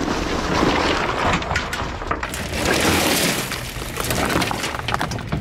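Junk and debris being shifted and rummaged through by hand, a continuous rattling and crunching clatter with many small knocks.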